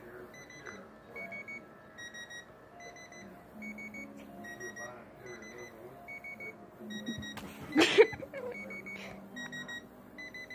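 Dish TV remote's locator beeping: short high beeps in quick little groups, about twice a second, alternating between two close pitches, the signal that the remote-finder has been triggered. A brief loud burst of noise cuts across it about eight seconds in.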